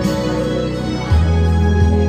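Instrumental background music with sustained keyboard chords over a steady bass, the bass note changing about a second in.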